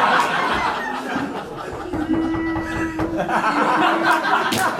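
Audience chuckling and laughing. About two seconds in, a voice holds a steady note for around two seconds, and there is a single sharp tap near the end.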